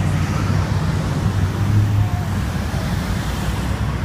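Dense road traffic idling and moving slowly in a jammed street, a steady low engine hum.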